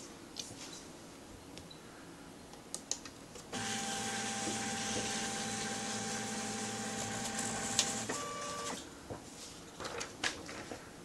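Plustek MobileOffice S420 portable sheet-fed scanner's feed motor pulling a sheet of paper through: a steady motor whine for about four and a half seconds starting a few seconds in, changing to a higher tone just before it stops. Light clicks and taps come before and after the run.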